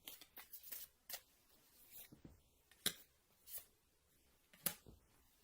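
Tarot cards being drawn from the deck and laid down: a scattering of faint, short clicks and slaps of card on card.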